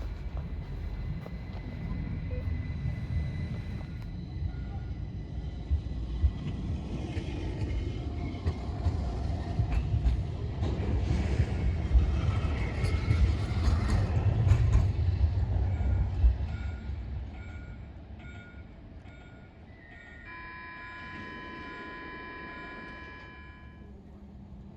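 Light-rail tram passing: a rumble of wheels and running gear builds to a peak about halfway through, then fades, with a faint repeating beep under it. Near the end a steady multi-tone signal sounds for about three seconds.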